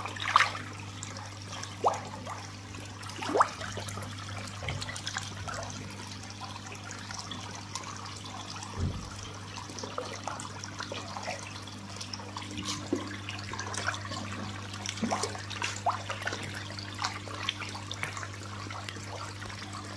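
Water pouring from a pipe into a fish tank, a steady splashing trickle, with sharper splashes now and then as tilapia feed at the surface. A steady low hum runs underneath.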